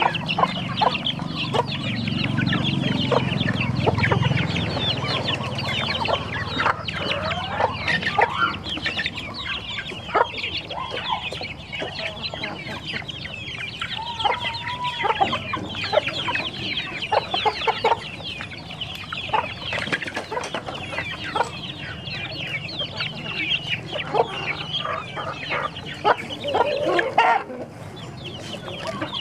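A flock of chickens feeding together: a dense, continuous chorus of quick high peeps, most likely from the chicks, mixed with hen clucks and occasional longer calls, plus scattered sharp ticks.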